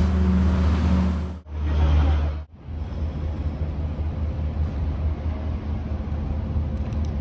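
Low rumble of road traffic in the outdoor ambience. It breaks off abruptly twice in the first few seconds as the shot changes, then goes on steadily.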